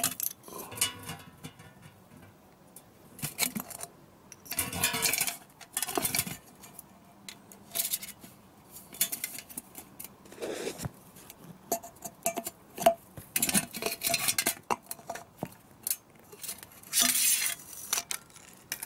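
Metallic scraping and clinking as a thin wire is worked into the hole in the domed end of a metal gas can lying on concrete, with several short, louder rasping bursts.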